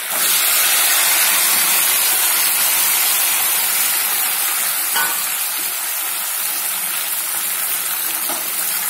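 Boiled mutton tipped into hot oil in a pan: a loud sizzle starts suddenly as the wet meat goes in and carries on steadily, easing slightly as it fries.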